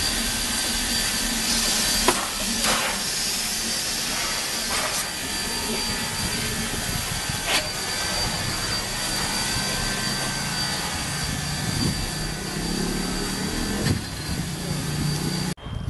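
2-6-2T tank steam locomotive hissing steam as it pulls passenger coaches slowly past, with a steady high whine and a few sharp clanks as the cars roll by.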